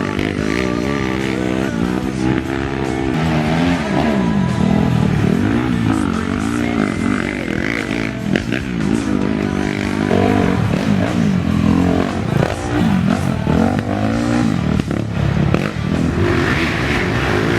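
Racing ATV engines revving up and down over and over as the quads accelerate and back off through the course.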